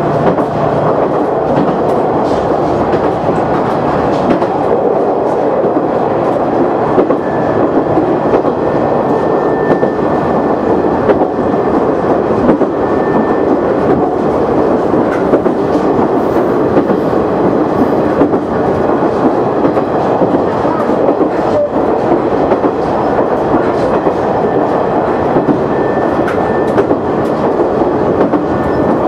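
JR KiHa 100 diesel railcar running along the line, heard from on board: a steady rumble of wheels on rail and engine, with the click of rail joints. A faint high-pitched squeal comes and goes.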